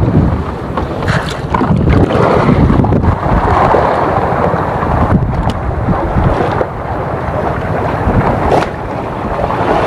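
Wind buffeting the camera microphone: a loud, uneven rumbling rush with no steady tone.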